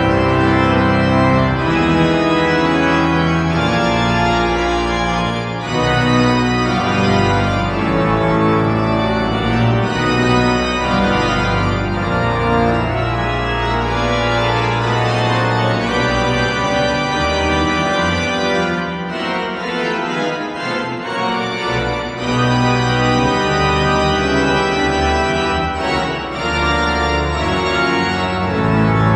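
Pipe organ playing sustained full chords over a deep pedal bass. The bass drops away for a moment about twenty seconds in, then the full sound returns.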